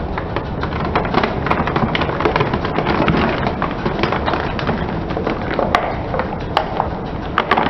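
Car tyre slowly rolling over small cardboard boxes of Turkish delight, the cardboard creasing and crushing with a dense run of crackles, snaps and small crunches, a few sharper snaps near the end.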